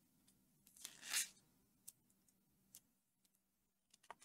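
Mostly near silence, with a brief scratchy rustle of chunky yarn drawn over wooden knitting needles about a second in, followed by a few faint clicks of the needles.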